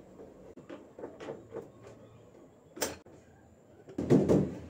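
Screwdriver driving screws into a washing machine's back cover: a run of small clicks and scrapes, one sharp click about three seconds in, then a louder knock and rattle of the cover being handled near the end.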